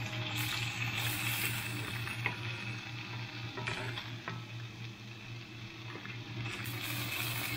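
Salmon fillet frying in a pan, sizzling steadily, with a few light utensil taps over a low steady hum.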